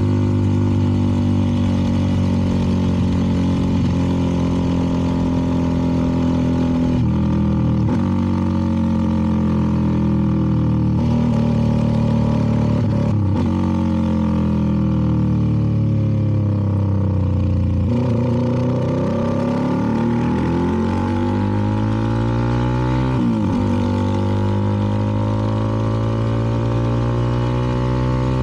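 A CFMoto 300NK's single-cylinder engine running through an aftermarket KO exhaust while riding. The engine pitch falls and rises with the throttle, with several abrupt changes that mark gear shifts.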